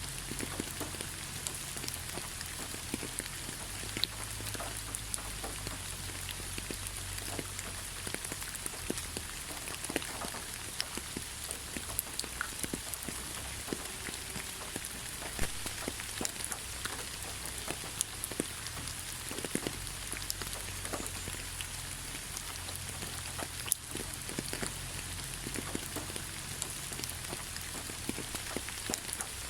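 Steady rainfall: an even hiss of rain with scattered sharper drop ticks throughout and a soft low rumble underneath.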